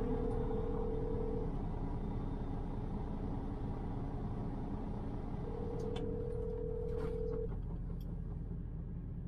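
Telephone ringback tone on a call being placed: two steady rings of about two seconds each, about four seconds apart, over a steady low rumble. A few faint clicks come near the second ring.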